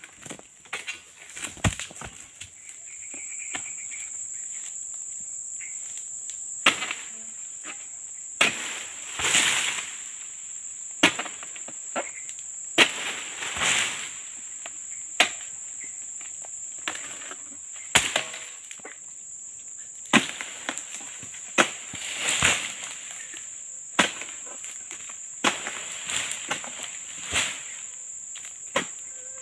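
A pole-mounted harvesting sickle strikes sharply at an oil palm's fronds and fruit bunch, once every second or two, with a few longer noisy swishes among the strikes. Over it runs a steady high-pitched drone of crickets or cicadas, which sets in about three seconds in.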